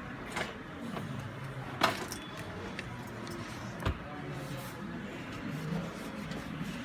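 A few sharp clicks or knocks, the loudest about two seconds in, over a low background murmur.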